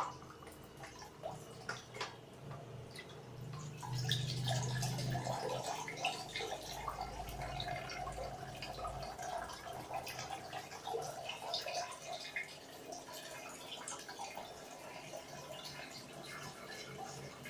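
Water trickling and dripping, with many small irregular drips, from the outlet of a small commercial reverse-osmosis water purifier. A faint low hum comes in a few seconds in and fades a few seconds later.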